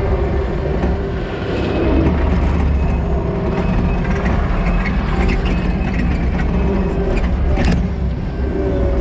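Kubota SVL90-2 compact track loader's four-cylinder turbo diesel engine running under load as the machine tracks back and forth packing a slope, with scattered clicks and squeaks from the tracks and linkage and a sharp click near the end.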